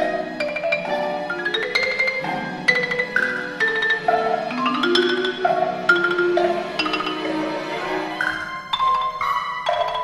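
Chamber orchestra playing a concert symphony for clarinet, harp, strings and percussion: a quick run of struck, ringing notes from mallet percussion over held low string chords.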